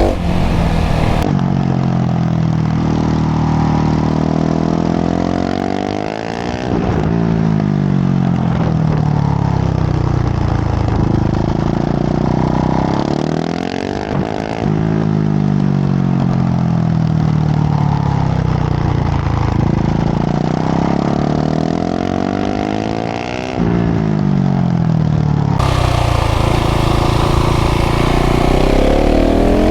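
KTM 690 SMC R's single-cylinder LC4 engine through a full LeoVince exhaust, ridden hard. The revs wind down slowly, then jump sharply back up three times, as on downshifts.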